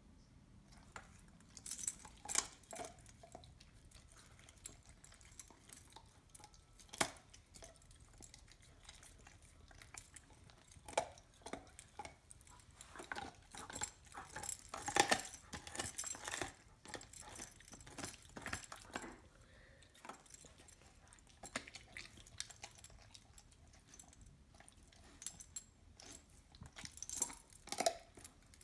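A dog gnawing a raw marrow bone: irregular sharp clicks, scraping and crunching of teeth on bone in short flurries, busiest about halfway through and again near the end.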